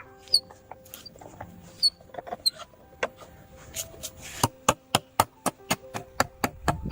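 Sharp knocks, scattered at first, then from about halfway a steady run of strikes at about four a second: a hand tool striking wood. Short high chirps come in the first half, over faint steady musical tones.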